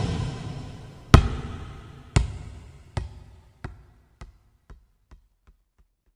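Volleyball dropping and bouncing on a court floor, about nine bounces that come faster and fainter until the ball comes to rest.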